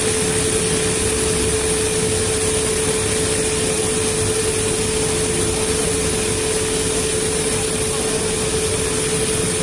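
Anmak AN001 A carpet overlock machine running steadily while it sews the edge of a rug, a constant machine hum with one steady mid-pitched tone.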